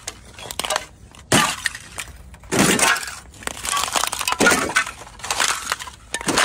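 Thin sheet of ice over a puddle cracking and shattering under footsteps, with a crunching break about once a second as each step goes through.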